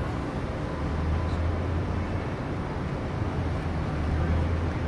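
Steady low rumble of outdoor city background noise, with a deep hum coming up about a second in.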